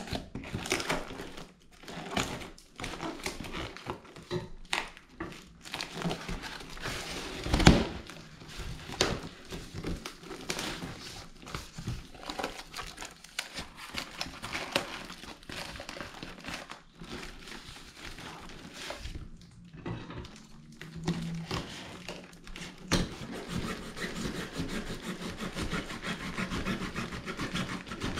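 Cardboard parcel and plastic packing tape being cut with scissors and torn open by hand: crinkling plastic, tearing cardboard and scattered knocks, with one loud thump about eight seconds in.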